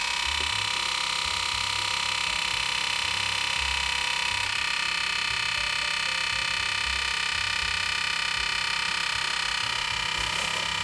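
A steady, unbroken electronic beep from the 386 portable computer's internal speaker: one high tone with many overtones, a new behaviour that the machine was not showing a moment before.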